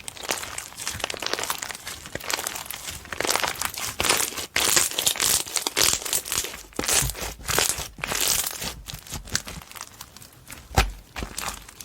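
Slime being squished, stretched and poked by hand, giving a dense run of quick clicks and crackling pops with louder squelches now and then.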